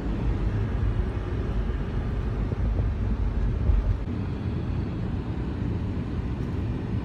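Road noise inside a moving car's cabin: a steady low rumble of tyres and engine at highway speed.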